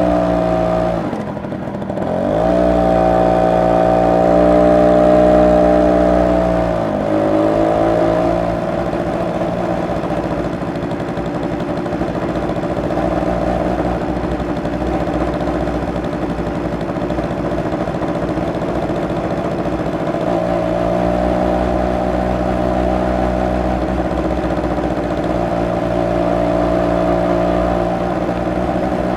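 Suzuki Birdie 50 (FR50) moped's single-cylinder two-stroke engine and exhaust while riding. The engine note dips and climbs again about two seconds in, holds steady, then falls about seven seconds in. It runs rougher and less even through the middle and settles into a steady note again about twenty seconds in.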